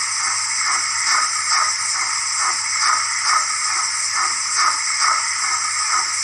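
Hornby W1 model steam locomotive running on a rolling road, giving a steady rhythmic chuff of about two and a half beats a second with hiss, over a low steady hum.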